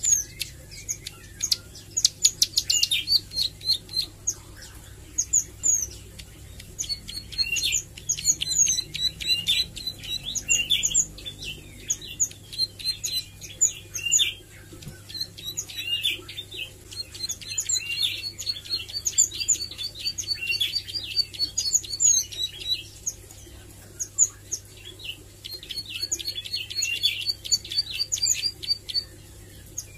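Plain prinia (ciblek sawah) learning its song: bursts of rapid, sharp, high chirps lasting a few seconds each, with short pauses between them.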